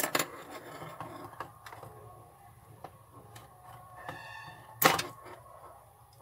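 Handling noise of wire leads and a small hand cutter: scattered light clicks and a sharp click at the start, a brief squeak, then one loud sharp snip about five seconds in as the cutter closes on a wire.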